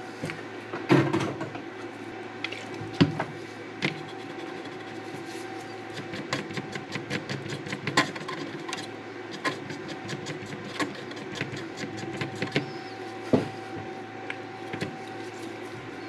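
Small irregular clicks and taps from hands and a tool working on a circuit board, over a steady low hum.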